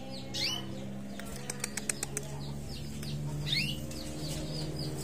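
Caged canaries giving short falling chirps, twice. Between them, about a second in, comes a quick run of light clicks as a bird flutters its wings in the cage. A steady low hum runs underneath.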